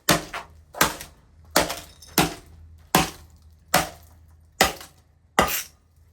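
A burnt laptop being struck over and over, its plastic casing cracking and breaking apart: eight or nine sharp blows, a little under a second apart.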